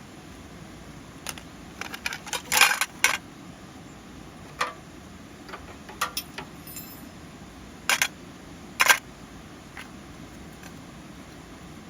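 Short metallic clinks and clatters, irregularly spaced, with a loud cluster near the start and two sharp strikes near the end, over a steady hiss.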